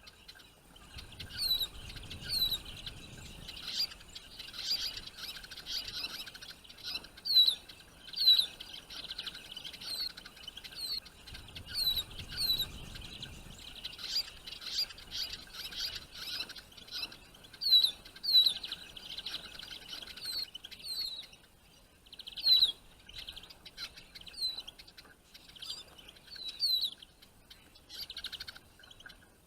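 Small songbirds twittering continuously, with sharp, falling whistled calls repeated roughly once a second.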